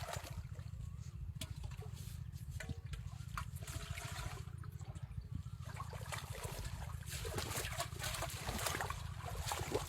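Water splashing and trickling in irregular bursts over a steady low rumble, as floodwater is stirred by fish being caught.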